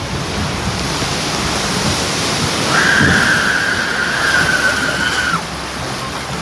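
Water churning and splashing around a Splash Mountain log-flume boat as it runs out of the drop. About three seconds in, a rider lets out one long high-pitched scream.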